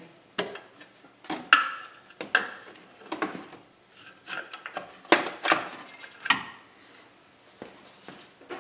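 A metal engine mount knocking and scraping against the car's subframe and brackets as it is worked up into place by hand: a series of sharp clunks and rattles, the loudest around five to six seconds in.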